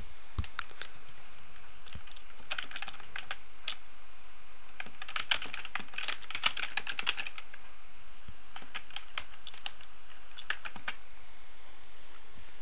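Typing on a computer keyboard in several short bursts of keystrokes, over a steady background hiss.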